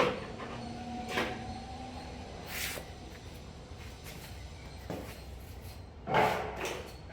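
A few scattered knocks and clatters from handling tools or parts. The first knock is sharp and is followed by a brief ringing tone, and a louder clatter comes near the end.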